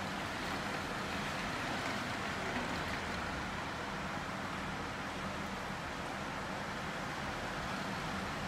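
Torrential wind-driven rain: a steady, even rush heard from indoors through closed window glass.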